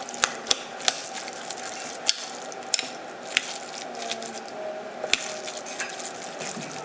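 A metal utensil mixing cooked rice and beans with a raw egg in a glass bowl. The mixture squishes softly, and the utensil clinks sharply against the glass now and then, about seven times.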